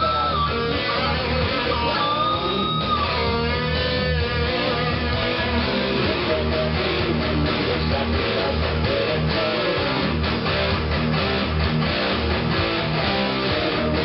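Electric guitar lead in a heavy metal song, over steady drums and bass. It holds long bent notes with vibrato for the first few seconds, then plays quick runs of notes.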